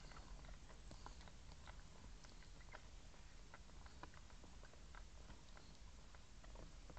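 Faint wet smacking and clicking from a schnauzer mother and her newborn puppies as she noses and licks them, over a steady low hum.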